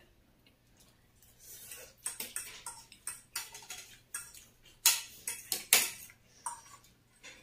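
A fork and plates clinking and clattering at a table while people eat: a quick run of sharp clicks that starts about a second and a half in, with the loudest clacks around five and six seconds.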